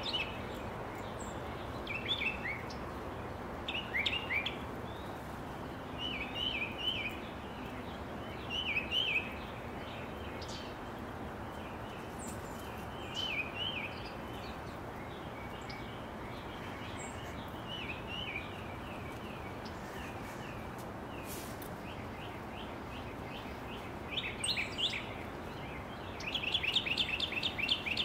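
Small songbirds chirping: short groups of quick high chirps every couple of seconds, with a faster, louder run of chirps near the end, over steady background noise.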